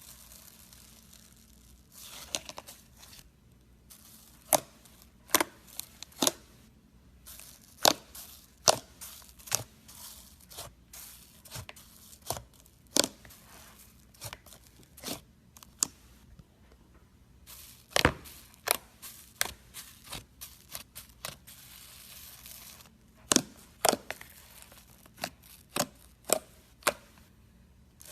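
Slime being squished and worked by hand: an irregular series of sharp, sticky pops and crackles, with stretches of softer stretching noise between them.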